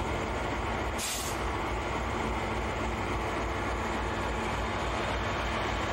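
Two EMD SD90MAC-H diesel-electric locomotives, with 16-cylinder 265H engines, throttled up and pulling past at close range: a steady low rumble. A short hiss cuts in about a second in.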